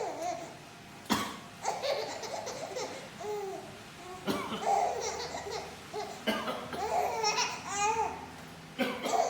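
A man coughs sharply four times, and after each cough a three-month-old baby breaks into laughter and squeals.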